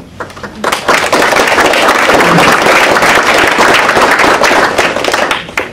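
Audience applauding: a dense patter of many hands clapping that starts under a second in and stops near the end.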